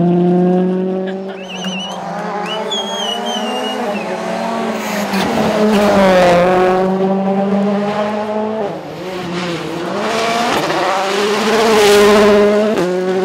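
A World Rally Car engine running hard at high revs, with short dips in pitch where the throttle is lifted or a gear is changed. A wavering tyre squeal comes in the first few seconds.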